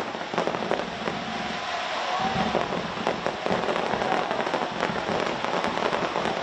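Fireworks display going off: rapid crackling and popping over a steady hiss.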